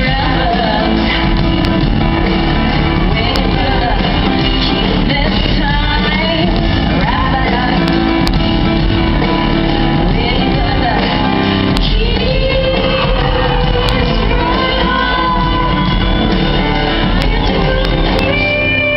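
A rock band playing live with a woman singing lead, recorded from the audience in a large hall; the recording is loud and dull-topped.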